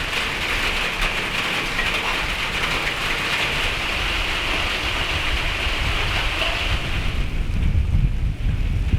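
Steady rain falling, an even hiss that eases about seven seconds in. Wind rumbles on the microphone underneath and grows stronger near the end.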